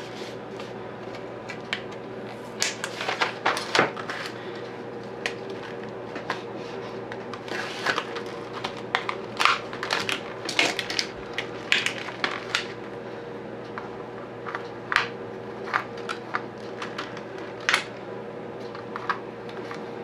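Plastic blister pack of AAA batteries being handled and opened with a utility knife: irregular crinkles, clicks and crackles. A steady low hum runs underneath.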